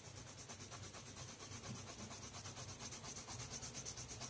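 A pale pastel pencil rubbing back and forth over grainy watercolour paper in quick, even shading strokes, several a second.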